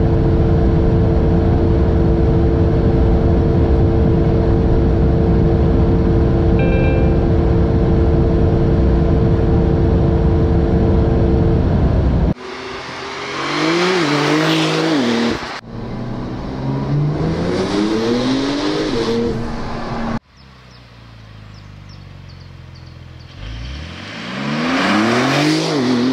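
Porsche 911 Turbo S (992) twin-turbo flat-six heard from inside the cabin at about 330 km/h, near its top speed: a loud, steady roar of engine, wind and tyres with a constant engine note. About 12 seconds in it cuts to the car accelerating hard past a roadside microphone over several short takes, its engine pitch climbing and dropping sharply at each upshift, then rising and falling as it passes.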